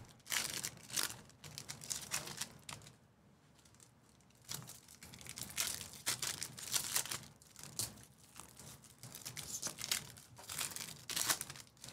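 Foil wrappers of Panini Prizm basketball card packs crinkling and tearing as packs are ripped open by hand, in several separate bouts of crackling with short quiet gaps between.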